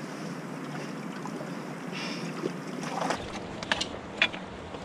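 Steady rush of flowing river water, with a few light clicks and knocks in the last second or two.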